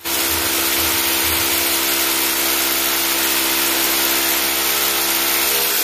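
Handheld electric core cutting machine boring into a reinforced concrete (RCC) wall: the motor runs steadily under load with the gritty grinding of the bit in the concrete, then stops abruptly.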